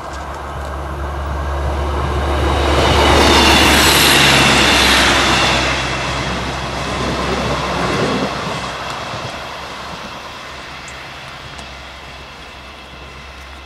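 A diesel multiple-unit passenger train passes close by on the line. It builds to its loudest a few seconds in, with a low engine drone under the rush of the wheels on the rails, then fades steadily as it goes away.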